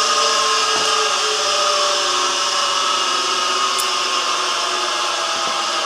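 Surface grinder's motor and grinding wheel running with a steady whine and hum, easing off slightly as it winds down after being switched off.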